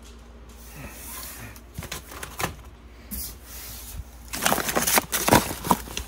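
Frozen vacuum-sealed meat packs being handled and shifted in a cardboard box: crinkling plastic and light knocks. The noise grows busier and louder about four seconds in.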